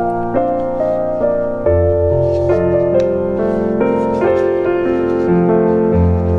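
Background piano music: a slow, gentle melody over sustained low notes.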